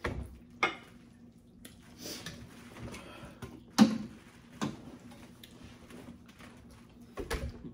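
Mukbang eating noises: scattered clicks, smacks and wet handling sounds of eating a seafood boil, the loudest a sharp snap about four seconds in, over a faint steady hum.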